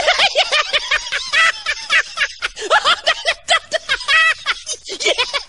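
Human laughter: high-pitched giggling and cackling in quick, continuous bursts.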